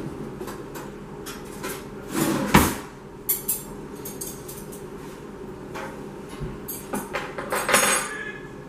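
Kitchen clatter: dishes and utensils knocked and set down on a counter, a string of sharp knocks with the loudest about two and a half seconds in and another burst near the end.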